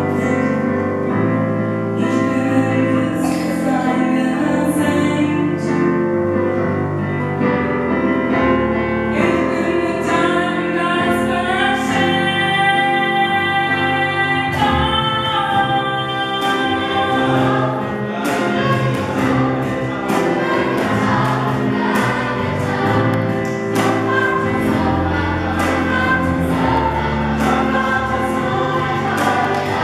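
Gospel choir singing, with a female soloist leading through a microphone and holding long high notes around the middle. About two-thirds of the way in a steady beat of sharp strikes joins the singing.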